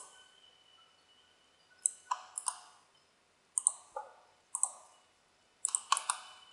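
Computer mouse button clicks, single and in quick pairs. They come in small clusters every second or two, with a denser run of several clicks near the end.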